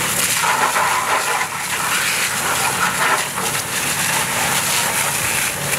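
Fire hose water jet spraying onto a burning Fendt tractor, a steady hiss of water and steam, with a low engine hum underneath.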